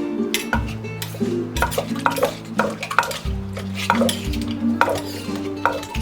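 A utensil clicking and knocking against a bowl or mortar as the salad dressing is stirred and mixed, in irregular taps about two a second. Acoustic guitar background music runs underneath.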